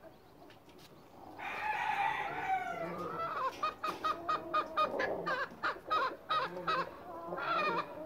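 Hen calling: a drawn-out, wavering call starts about a second and a half in, followed by a fast run of clucks, about three to four a second, and one more call near the end.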